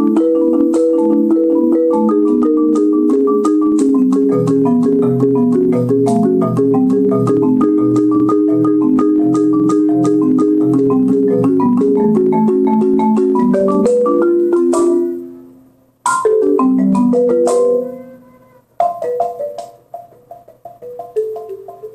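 Marimba played with mallets: fast rolled chords for about fifteen seconds that ring off to silence, then a short phrase, and softer repeated notes near the end.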